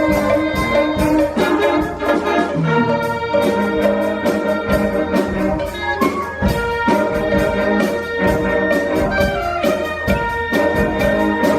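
A school band playing: brass instruments carry held, pitched notes over a steady beat of percussion hits.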